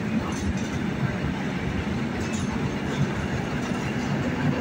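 A diesel-electric multiple unit (DEMU) train arriving at a platform and running past, its diesel engine humming steadily under the sound of the coaches rolling on the rails.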